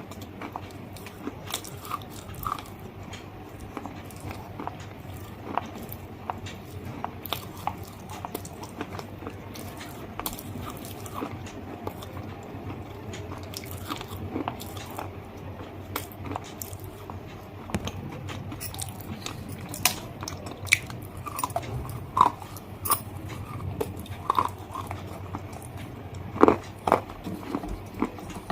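A person taking crunchy bites and chewing close to the microphone: many sharp snaps and crunches, getting louder and more frequent in the second half.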